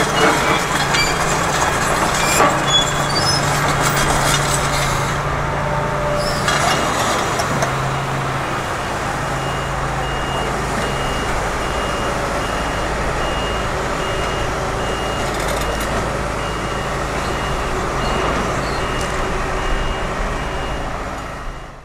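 Hitachi 245 hydraulic excavator's diesel engine running under working load, with knocks and clatter over the first few seconds. From about six seconds in, a warning alarm beeps at an even pace for about ten seconds over the engine, and the sound fades out at the end.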